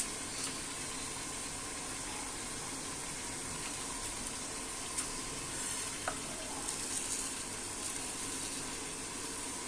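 Dry-roasted whole spices (coriander seeds, peppercorns, cloves) being scraped from a pan with a silicone spatula and tipped into a steel grinder jar, with a light rattle of seeds from about two-thirds of the way in. Before that come a few small clicks as whole spices are dropped into the jar, all over a steady background hiss.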